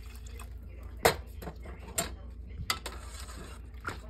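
Metal spoon knocking and clinking against a stainless-steel saucepan while stirring soup and broth: a handful of sharp separate knocks, the loudest about a second in, over a low steady hum.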